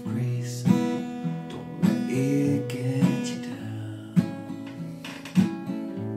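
Acoustic guitar strummed in a steady rhythm, one strum about every second, the chords ringing on between strums in an instrumental break of the song.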